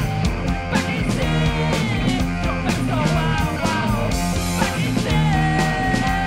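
Punk rock band playing live: distorted electric guitars, bass and drums, with a lead vocal at the microphone that holds one long note from about five seconds in.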